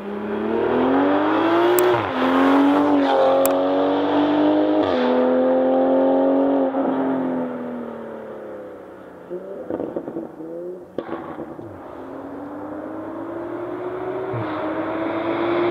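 A Toyota GR Supra 2.0's B48 turbocharged four-cylinder on an AWE resonated Touring Edition exhaust, accelerating hard with two quick upshifts about two and three seconds in. The note then falls in pitch and fades as the car goes by, with a brief patch of crackles. Near the end another run comes in, the engine note rising steadily.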